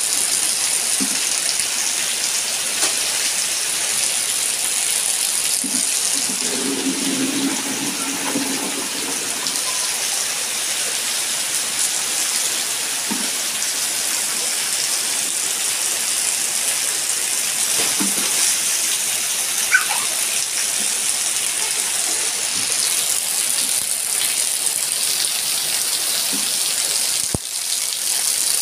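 Heavy rain falling steadily on a wet concrete yard: an even, constant hiss of splashing drops.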